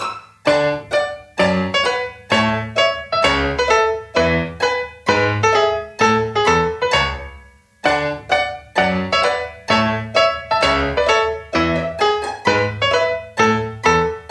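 Background piano music: a steady run of struck notes, several a second, with a brief pause a little past halfway.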